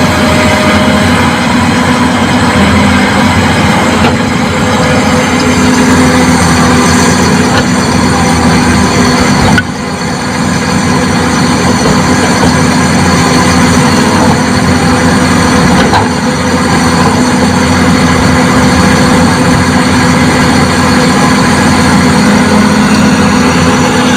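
Heavy construction machinery's diesel engine running steadily and loudly, with a short drop in loudness about ten seconds in.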